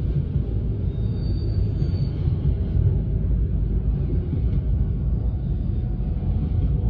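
Double-stack intermodal container freight train rolling past at close range: a steady low rumble of the well cars' wheels on the rails.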